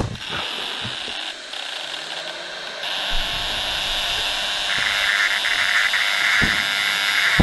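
Igla MANPADS gripstock's audible seeker tone, a steady high buzz, joined about five seconds in by a second, lower buzzing tone: the signal that the seeker has acquired the target.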